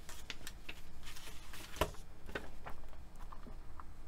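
Scattered light taps and clicks of small objects being handled and set down on a work surface, one sharper knock just under two seconds in.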